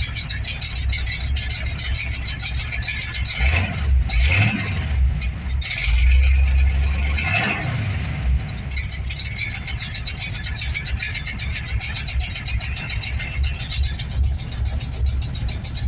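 Chevrolet Nova's engine idling while it warms up after a fresh ignition tune-up, steady and holding idle. It swells up in revs twice, about three and six seconds in, and each time drops back to idle.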